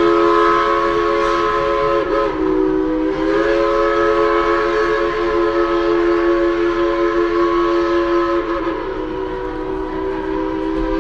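Locomotive multi-chime air horn sounding long blasts: a held chord of several notes, broken briefly about two seconds in, then held again until about eight and a half seconds in, when it drops lower and weaker.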